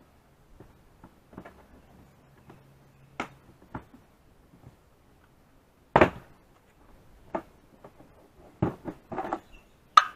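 Infiniti FX35 liftgate's plastic interior trim panel being pried off by hand, its push clips popping loose. Scattered light clicks, then a sharp snap about six seconds in, and a cluster of pops and knocks near the end as the panel comes free.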